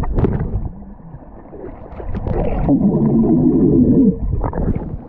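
A man's voice heard from underwater: a muffled, warbling hum or yell blown out through bubbles, lasting about a second and a half from about halfway through. Sharp splashes and knocks of water come near the start and again near the end.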